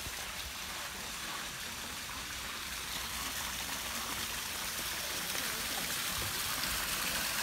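Small garden waterfall splashing over rocks into a pond: a steady rush of falling water that grows slightly louder.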